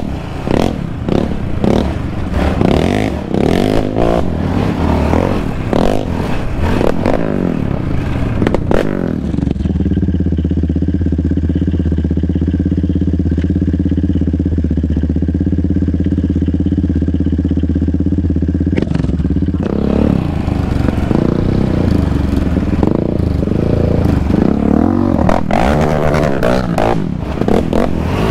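Yamaha Raptor 700R ATV's single-cylinder four-stroke engine running under varying throttle on a rough dirt trail, with clattering and knocking from the chassis over the ground. From about 10 s to 19 s the sound changes to a steady engine drone at constant pitch, then the rough riding noise returns.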